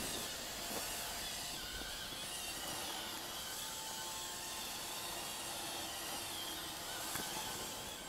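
iRobot Roomba robotic vacuum running on a rug: a steady whirring hum of its motor and brushes.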